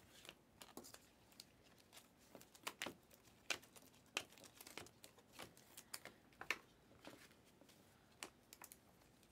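Faint, irregular clicks and slides of a stack of shiny Panini Mosaic basketball cards being flicked through one card at a time in the hands.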